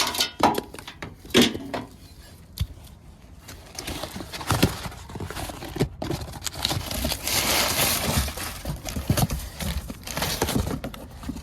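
Hands working on a mini-split outdoor unit's fan motor and wiring: irregular rustling and scraping with scattered knocks and clicks as the wire, clamp and parts are handled.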